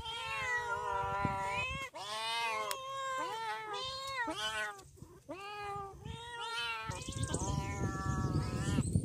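Cats meowing one call after another, some calls overlapping, as they beg for milk. A rushing noise sits under the calls in the last two seconds.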